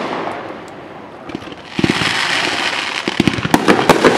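Aerial fireworks shells bursting overhead: a sharp bang a little under two seconds in, then a dense crackling of many small pops from the bursting stars, with more bangs near the end.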